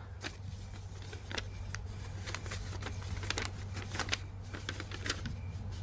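Paper rustling and crinkling in small scattered crackles as an envelope is opened and a letter is drawn out and unfolded, over a steady low hum.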